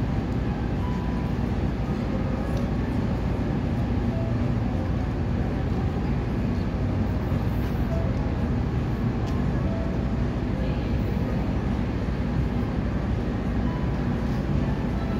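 Steady low rumbling background noise with no distinct events, a few faint short tones heard above it.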